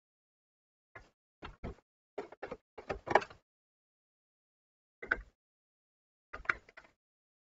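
Short clicks and knocks of parts being handled inside a PC tower case, as a connector is worked in around the graphics card. A quick run of knocks in the first few seconds, the loudest about three seconds in, then a single knock about five seconds in and a small cluster near the end.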